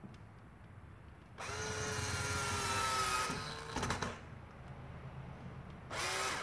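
Cordless drill driving a screw through a rubber bumper protector into a car's front bumper: the motor whines steadily for about two seconds, dropping slightly in pitch before it stops, then starts again briefly near the end.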